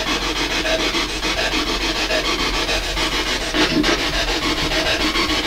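A spirit box sweeping through radio stations: steady rasping static, finely and rapidly chopped by the sweep, with a fragment through it captioned as a deep voice.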